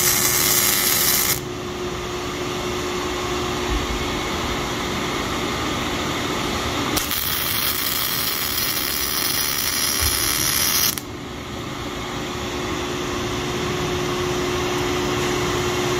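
Robotic MIG welding arc sizzling in two stretches: a weld ends about a second and a half in, and another runs from about 7 s to 11 s. Between and after the welds a steady hum continues.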